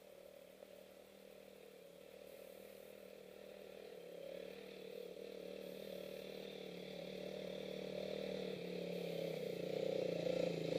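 Dirt bike engine approaching along a trail, its steady note growing louder as it draws near.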